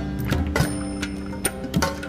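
Background music with held notes over a steady beat.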